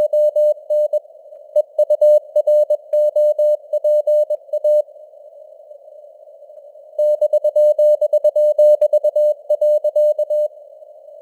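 Morse code (CW) sent at 21 words per minute: a single beeping tone keyed in dots and dashes over a band of simulated radio hiss. The code breaks off for about two seconds in the middle, leaving only the hiss, then resumes.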